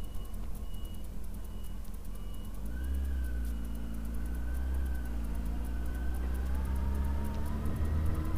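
Honda Hornet 900's inline-four engine running through its newly fitted exhaust as the bike rides at low speed, the engine note rising about two and a half seconds in and then holding steady, over a low wind rumble. A faint high beep repeats about one and a half times a second and stops about four seconds in.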